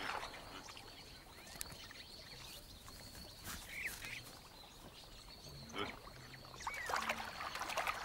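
A baboon's teeth working at a mussel shell: a few scattered sharp clicks against faint river ambience, with a couple of short bird chirps.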